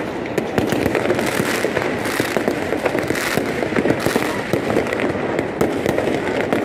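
Fireworks crackling in a dense, continuous barrage of rapid small pops and bangs. Short hissing rushes come about once a second in the first few seconds.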